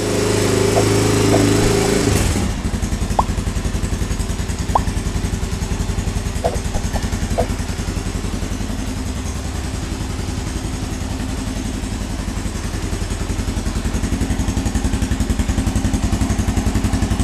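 Honda XLX 350R's air-cooled four-stroke single-cylinder engine, freshly rebuilt, running just after a first-kick start. It holds at raised revs for about two seconds, then drops to a steady, even idle.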